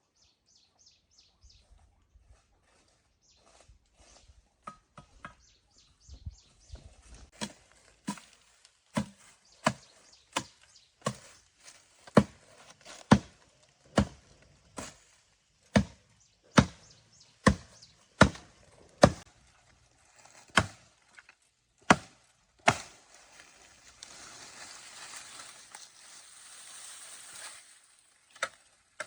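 A series of sharp chopping blows, roughly one a second, loudest through the middle, followed near the end by a few seconds of steady scraping noise.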